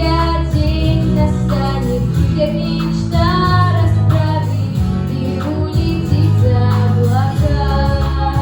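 A young female voice singing a melody over an instrumental backing track with a steady bass line.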